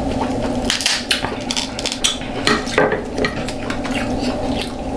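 Mukbang eating sounds from a seafood boil of king crab legs, lobster tail and shrimp: irregular sharp clicks and clinks of shells and dishes being handled, over a steady low hum.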